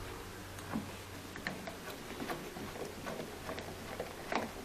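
Faint, irregular small ticks and clicks of a screw being turned by hand into a door hinge.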